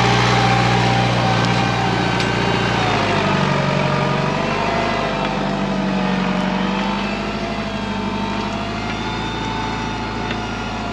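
Tractor diesel engine working under load, pulling a four-furrow reversible plough through the soil. Its note sags and wavers a few seconds in, then steadies.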